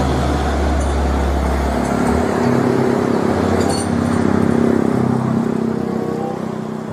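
Roadside traffic: a heavy fuel tanker truck and other vehicles driving past with their engines running, a steady traffic noise with engine hum that shifts in pitch as they go by.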